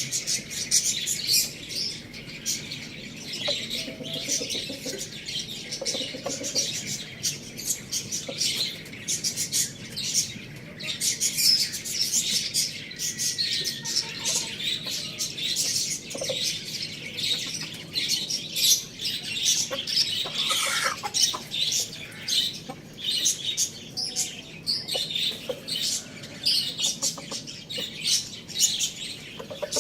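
Many small birds chirping and chattering continuously, a dense mass of high, quick calls.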